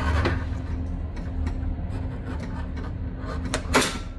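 Sport Trac door latch worked by hand with the door panel off: rubbing and small clicks of metal parts, then one sharp click near the end as the latch snaps closed.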